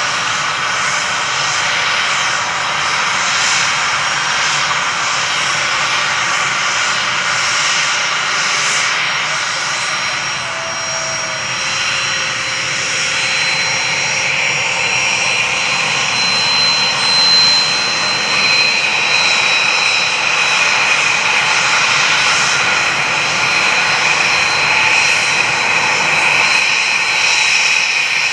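Four Pratt & Whitney F117 turbofans of a Boeing C-17 Globemaster III running at taxi power: steady jet noise with a high turbine whine. A higher whine swells a little past the middle.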